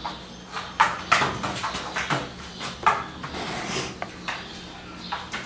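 A handful of irregular sharp knocks and scuffing rustles over a faint low steady hum.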